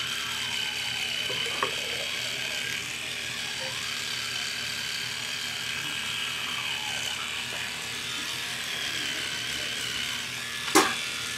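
Electric toothbrush running steadily in the mouth while brushing teeth, a high buzz. A single sharp click shortly before the end.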